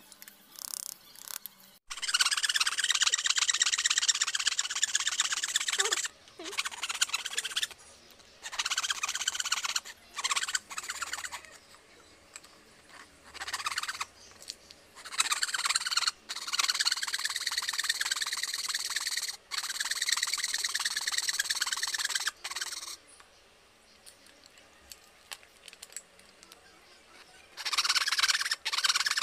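Small fine-toothed hand saw cutting teak, a rasping sound of quick back-and-forth strokes. It comes in runs of a few seconds with short pauses between them.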